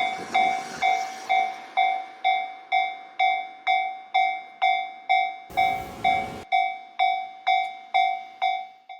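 Japanese level-crossing warning bell ringing steadily, about two strikes a second, each a bright ringing tone that fades before the next. A brief burst of noise cuts in about five and a half seconds in, and the ringing stops suddenly near the end.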